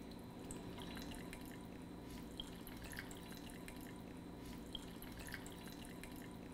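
Thin stream of cane liquor poured from a small plastic bottle onto ice in a glass: a faint trickle with scattered little drips.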